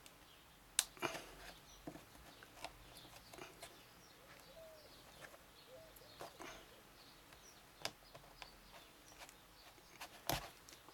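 Sparse, faint clicks and taps of metal pliers gripping, twisting and pulling at a worn heel tip on a stiletto heel to work it loose. The sharpest click comes near the end.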